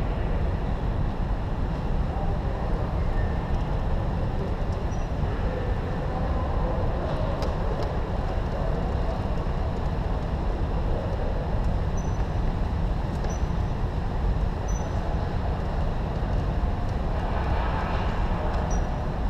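Indoor go-kart driving laps on a concrete track, heard from on board: a steady drive and rolling noise that runs on without a break, with a slightly louder stretch near the end.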